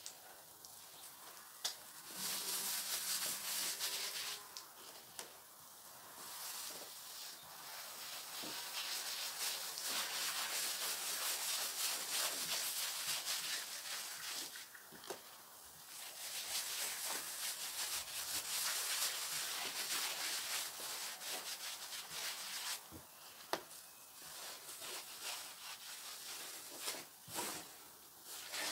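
Rough scraping, coming in long stretches of several seconds with short pauses between, and a few sharp clicks.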